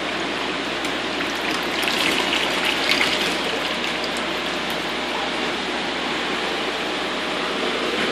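Water sloshing and splashing in the chamber of a koi pond vortex / radial-flow filter separator as a plastic bucket is lifted out of it, over a steady rush of water. The splashing is loudest about two to three seconds in.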